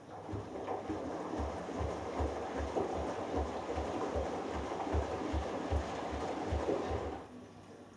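Hoover Dynamic Next DXA610IW3 washing machine on its delicates wash: the drum turns for about seven seconds, sloshing water and laundry with a regular low thump, then stops.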